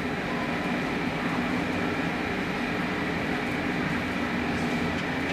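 Steady hum of the air blowers that keep an inflatable sports hall up, an even machine noise with no change.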